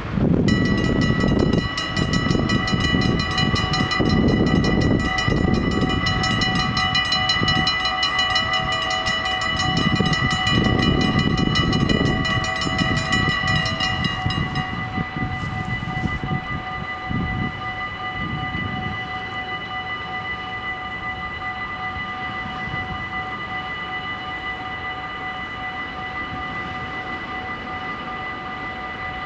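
Level-crossing bells of a Dutch automatic half-barrier crossing ringing rapidly while the barriers come down. About fourteen seconds in, the ringing changes to a softer, steadier tone that carries on. A low rumble sits underneath for the first half.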